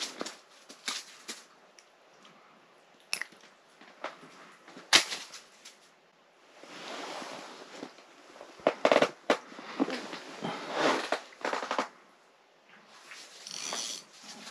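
Close handling noises on snowy, slushy ice: scattered sharp clicks and knocks, the loudest about five seconds in, with stretches of rustling and crunching slush between them.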